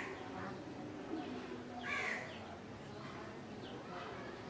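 A crow cawing twice, about two seconds apart, with a few faint high chirps from small birds between the caws.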